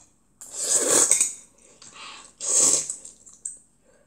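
A child slurping jjamppong noodles off chopsticks: two long, loud slurps, the first about half a second in and the second about two and a half seconds in.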